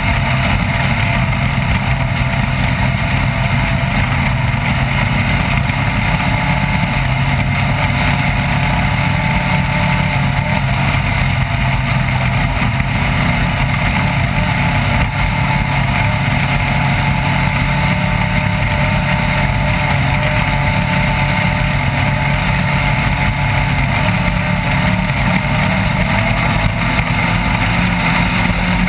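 Off-road race vehicle's engine running hard and steadily at speed, its pitch wandering only slightly, over a constant rush of noise.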